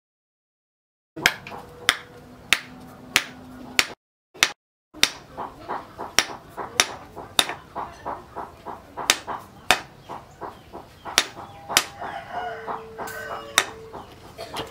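Sharp knocks repeating about every half second to second as a wooden handle is knocked down onto the knife's tang, starting about a second in with a brief drop-out near four seconds. Chickens call in the background.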